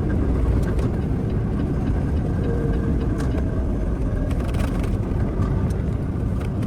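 Steady low rumble of a semi truck running down the road, engine and tyre noise together.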